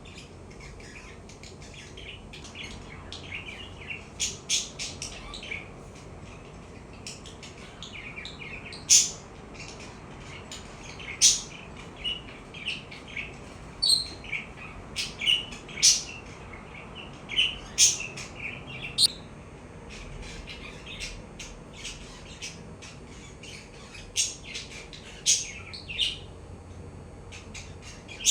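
Budgerigar chirping and warbling: a busy run of soft chatter broken by sharp, loud chirps every second or so, thickest in the middle.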